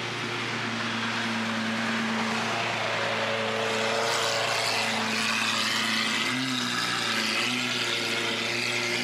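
Lamborghini Aventador SVJ's V12 engine running at low revs as the car rolls slowly past: a steady deep drone, with a short wobble in pitch about six to seven seconds in.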